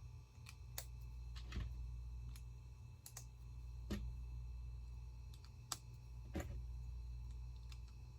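Small plastic Lego pieces clicking and tapping as they are handled and snapped together, a dozen or so scattered sharp clicks at irregular spacing, over a faint steady low hum.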